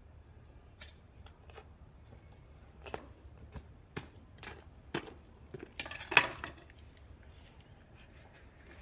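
Irregular light clicks and knocks of small hard objects being handled, with a louder brief clatter about six seconds in.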